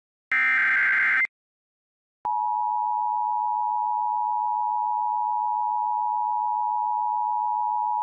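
Emergency Alert System SAME header: a one-second burst of shrill warbling digital data, a second of silence, then the steady EAS attention tone starting a little over two seconds in and holding.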